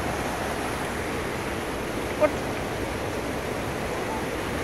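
Steady rush of a rocky mountain stream flowing over boulders, with one short, sharp sound about two seconds in.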